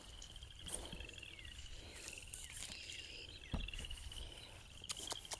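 A steady chorus of high, rapidly pulsed trills from small animals in the wet fields, with a few soft clicks and a low thump from walking and handling.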